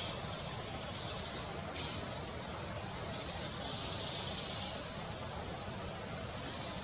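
Steady background hiss with a few short, high bird calls and a thin, high held note for a couple of seconds in the middle.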